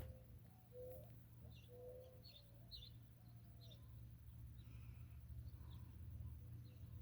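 Faint desert bird calls: a run of short, low cooing notes in the first few seconds and scattered high chirps, over a steady low rumble.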